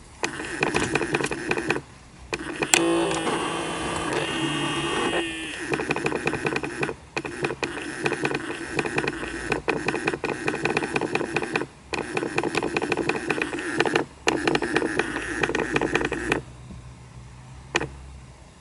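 Rapid, uneven clicking and rattling from the air mix damper behind the dashboard of a Daihatsu Mira Gino L650S, the fault the uploader puts down to a worn damper that sticks after long use at a 24–26 °C setting. The clicking stops briefly three times and ends about sixteen seconds in, with a short stretch of steady tones over it around three to five seconds in.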